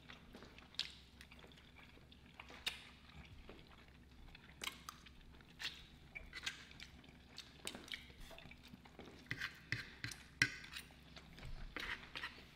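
Quiet chewing and eating sounds of two people eating meat and rice, with scattered short sharp clicks of forks against the food trays.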